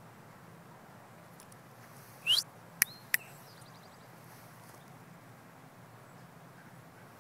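Quiet open-air background with one short, loud rising chirp or whistle a little over two seconds in, followed by two sharp clicks about a third of a second apart.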